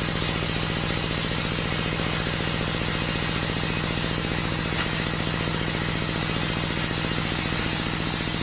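Engine driving a belt-driven circular saw, running steadily at constant speed with a rapid, even pulse. The large saw blade is spinning free and not yet cutting.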